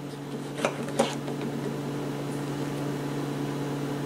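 A steady low motor hum, with two light clicks of small cleaning items being handled on the bench about half a second and a second in.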